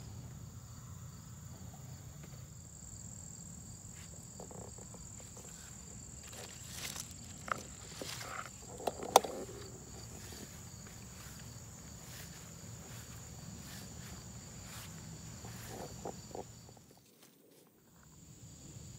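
Insects trilling in a steady high pitch, fading out briefly near the end. Rustling and a few sharp clicks about seven to nine seconds in, as leaves brush past.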